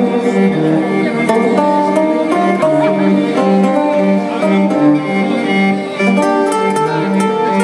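Live folk metal band playing: a bowed violin melody over a repeating low riff from electric guitar, in short held notes alternating between two pitches.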